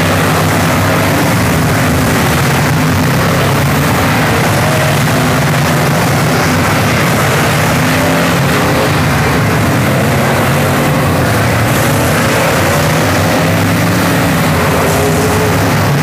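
Race car engines running together in a steady, loud drone, their pitches wavering up and down.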